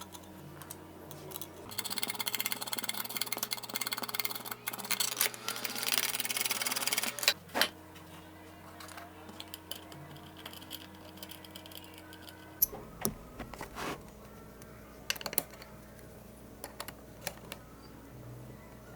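Rapid metallic clicking for about five seconds as a washer and nut are worked onto an M8 threaded rod, then a few single clicks and taps. Soft background music plays underneath.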